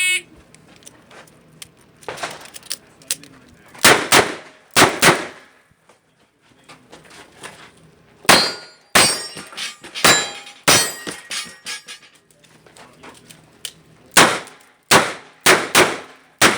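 A Smith & Wesson 929 9mm revolver firing a string of shots, in quick pairs and singles spread across the stage, with a pause of a few seconds between groups. A short shot-timer start beep sounds right at the beginning.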